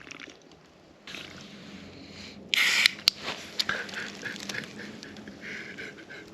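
A shaken cream soda opened: a sudden loud spraying hiss about two and a half seconds in, then fizzing and crackling as it foams over.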